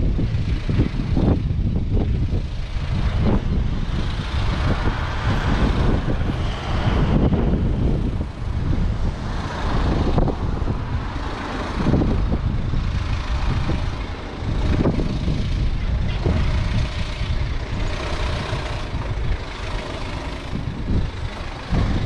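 A road vehicle driving: steady engine and road rumble with a rushing noise that swells and fades every few seconds.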